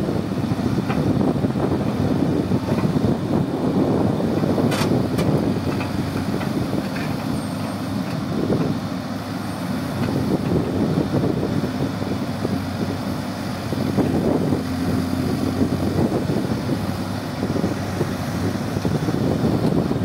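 Hidromek backhoe loader's diesel engine running under load while the rear backhoe arm digs, its note rising and falling as the hydraulics work. A single sharp knock comes about five seconds in.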